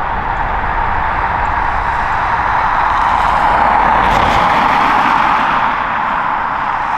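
Boeing 777-300's twin jet engines at takeoff power during the takeoff roll: loud, steady jet noise that swells a little around the middle.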